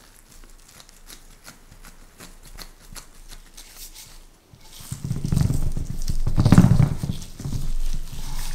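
Gloved fingers pressing tart dough into a fluted metal tart pan, with faint soft taps. About five seconds in, a wooden rolling pin rolls across the pan's rim with a louder low rumble as the rim cuts off the excess dough.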